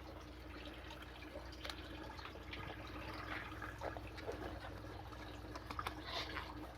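Faint trickling and dripping of water from an aquaponics system, over a steady low hum, with scattered light clicks.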